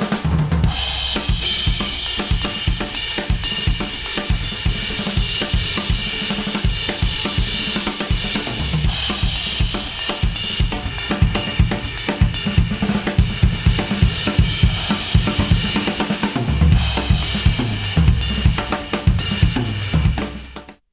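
Instrumental music with a steady drum-kit beat of kick, snare, hi-hat and cymbals, played back through Apple AirPods and recorded through an artificial ear simulator. The music cuts off just before the end.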